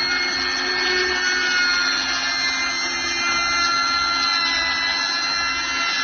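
Electric edging trimmer machine running steadily, its motor giving a constant high whine over a low hum.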